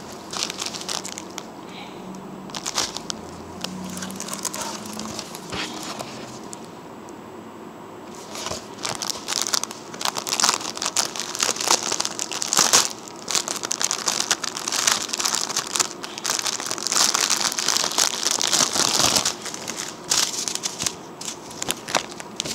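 Small clear plastic bags of diamond-painting drills crinkling and rustling as they are handled. The handling is light at first and grows loud and continuous about a third of the way in.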